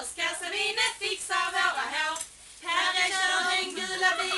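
A small group of women singing a song together, with a short pause between lines a little past halfway through.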